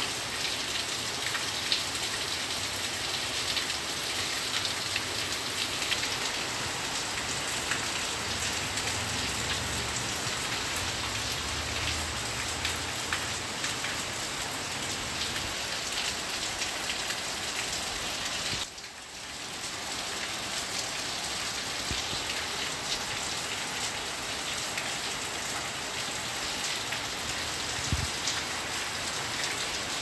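Heavy rain pouring steadily, a dense patter of drops hitting a concrete surface. The sound dips briefly a little past the middle, then comes back.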